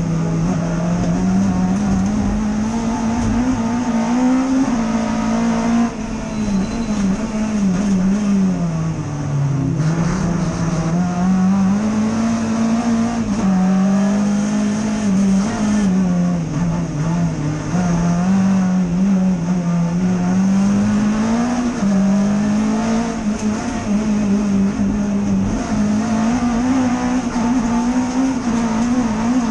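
Vauxhall/Opel 2.5-litre XE four-cylinder race engine driven hard, heard from inside the rallycross Corsa's cabin. Its note climbs and drops again and again, with a deeper dip about ten seconds in.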